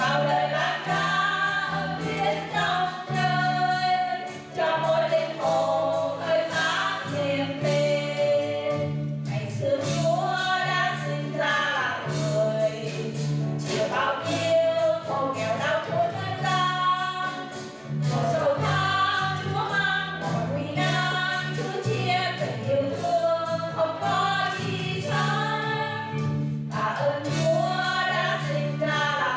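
Four-woman vocal quartet singing a gospel hymn in harmony over steady sustained low accompaniment notes.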